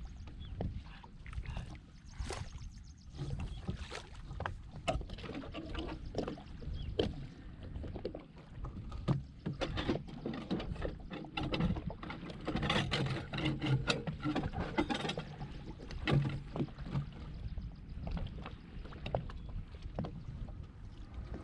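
Sloshing and splashing in shallow water with many scattered knocks and clunks as a small fibreglass boat is handled and pushed off the shore. The knocks are busiest in the middle of the stretch.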